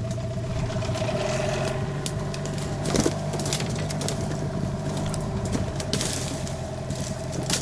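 Outboard boat motor running steadily at low speed, with several sharp knocks and scrapes over it, the loudest about three seconds in.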